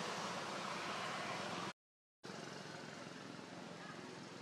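Steady hiss of outdoor background noise, cut off for about half a second of dead silence a little under two seconds in by an edit, then resuming slightly quieter.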